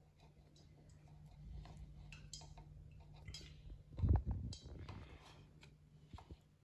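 Hands working chicken pieces into seasoned flour in a plastic bowl: soft scattered clicks and rustles, with a dull thump about four seconds in, over a faint steady hum.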